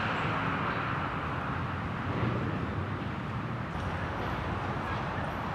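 Steady outdoor city ambience: a low, even rumble of distant traffic.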